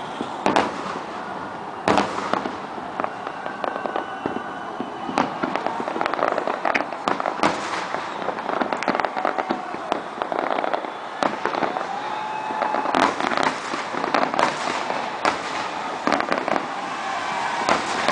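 Aerial fireworks display: a steady run of bangs from bursting shells over dense crackling, with the heaviest bangs near the start and again past the middle.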